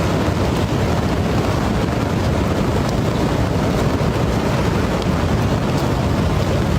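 Loud, steady rushing noise of fast-flowing floodwater, with wind buffeting the microphone.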